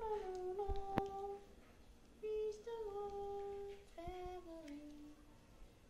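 A voice humming a slow tune in held notes that step down in pitch, with a sharp click about a second in.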